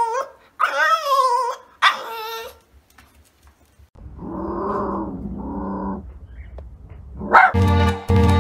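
Dogs vocalizing: a French bulldog gives two short, high, wavering whining howls, then a lower, longer vocalization in two parts comes from another dog, with louder low growly sounds near the end.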